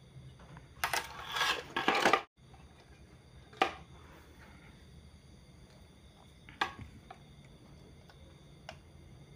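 Handling noise from a TV circuit board being moved and turned over on a workbench: a rattling, scraping clatter lasting about a second and a half, then a few single sharp knocks of tools and parts against the board and bench.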